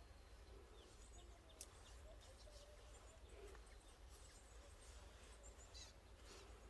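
Near silence: faint ambience with a low steady hum and a few scattered faint high chirps.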